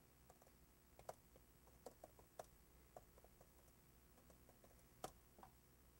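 Faint, irregular clicks of laptop keyboard keys being typed, the loudest about five seconds in.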